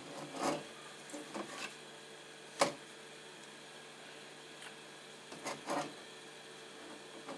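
Camera handling noise: a few light knocks and rubs, with one sharp click about two and a half seconds in, over a faint steady hum.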